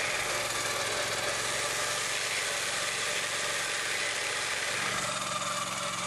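Timberline 4410 portable sawmill cutting through a log: its 30-horsepower Kohler gas engine runs steadily beneath the noise of the circular blades in the wood. The engine note shifts slightly near the end.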